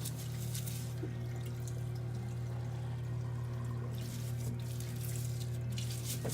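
Parts-washer cleaning tank running: a steady pump hum with solvent streaming and splashing.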